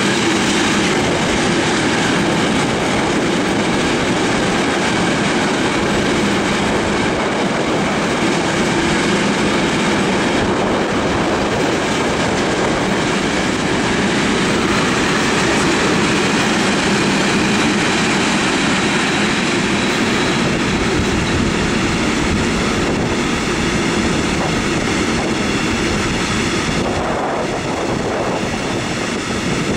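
Container freight train's wagons rolling past on the adjacent track: loud, steady noise of steel wheels running on the rails.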